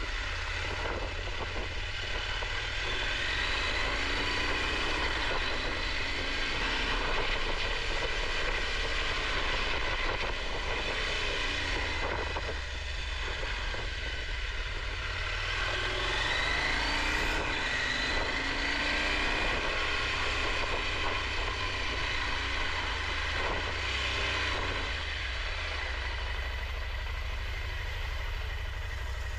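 Motorcycle engine heard from on board, its revs rising and falling, over a steady low rumble.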